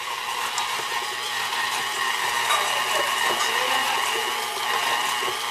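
Electric stand mixer running steadily, its flat beater churning thick cookie dough in a stainless steel bowl, with an even motor whine.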